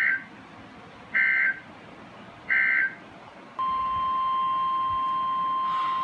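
Three short screechy data bursts of an Emergency Alert System SAME signal, about a second and a half apart, typical of the end-of-message code that closes a weather radio warning. A little over three seconds in, the steady 1050 Hz NOAA Weather Radio warning alarm tone starts and holds, the signal that a new warning is about to be read.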